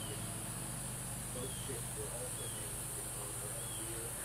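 Soft calls of a foraging wild turkey flock: four short, high peeps about a second apart, with faint low clucks between them. Behind them runs a steady high insect drone and a low hum.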